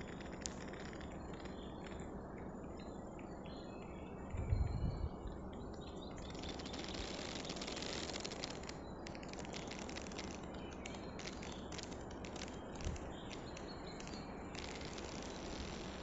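Quiet outdoor ambience: a steady low background hiss, with faint high chirps or clicks through the middle and a low thump about four and a half seconds in.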